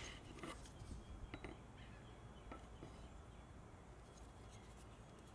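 Faint, scattered clicks and taps of a plastic pocket-hole jig and its metal drill bit being handled, over near silence.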